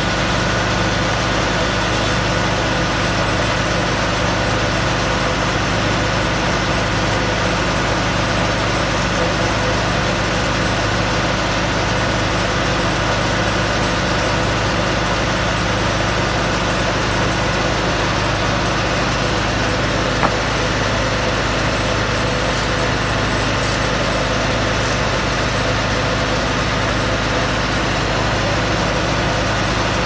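Farm tractor engine running steadily, driving a carriage sawmill through its PTO shaft. One short sharp click about twenty seconds in.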